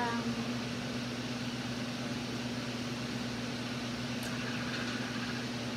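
A steady low hum with a faint hiss underneath.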